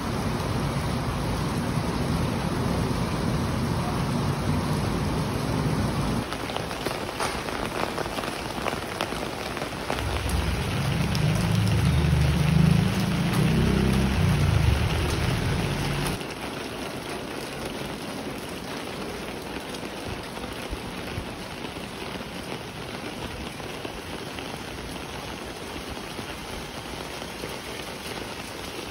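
Steady rain falling and pattering on wet pavement, with scattered drip ticks. A low rumble runs under it for the first six seconds, and a louder one lasts from about ten to sixteen seconds in.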